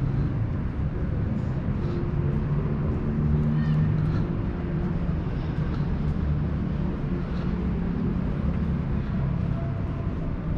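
City street ambience: a steady low rumble of road traffic, with a brief high-pitched call about three and a half seconds in.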